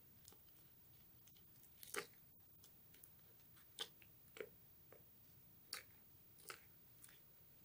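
A small plastic spoon stirring thick, sticky honey paste in a small glass bowl: faint, irregular wet clicks and squelches, about half a dozen.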